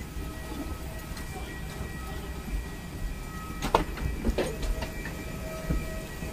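Low steady rumble and a faint hum in an airport walkway, with the footsteps of people walking and two sharp knocks a little past the middle.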